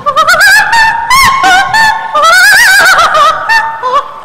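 Operatic soprano singing with a wide vibrato, moving in quick rising and falling runs that climb to a high peak about two and a half seconds in.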